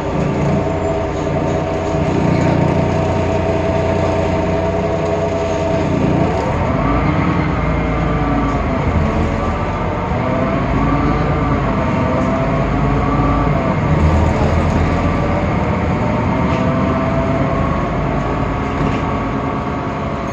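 Temsa Avenue LF city bus's DAF PR 228 diesel engine and ZF Ecolife automatic gearbox under way: a whining set of tones over a low rumble, the pitch dipping and climbing again several times as the bus slows and gathers speed, most clearly about six seconds in. This whine is the sound called strange and unlike a normal bus of this type.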